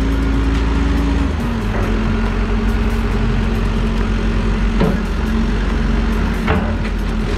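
Caterpillar backhoe loader's diesel engine running steadily close by. Its note drops slightly about a second in and then holds. A couple of brief knocks come in the second half.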